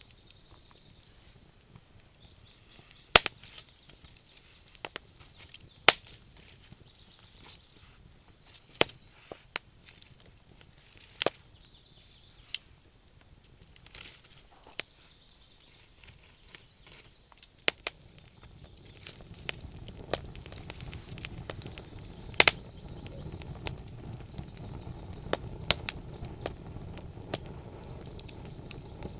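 Wood fire crackling, with sharp irregular pops of burning logs and faint bird chirps behind. About two-thirds of the way through, a low rushing noise swells in under the pops.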